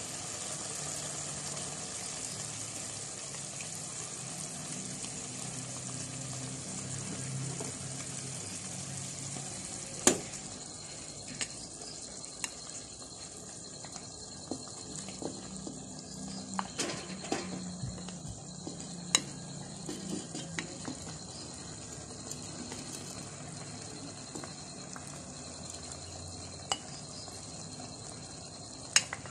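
Chicken curry gravy simmering in a pot on low heat, a steady sizzling hiss. From about ten seconds in, a few sharp clicks of a spoon knocking against a plate and the pot as cooked rice is spooned in on top.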